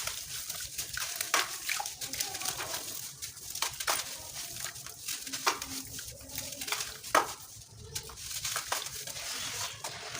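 Crunchy sand-cement crumbling, a continuous crackle with scattered sharp cracks as pieces break.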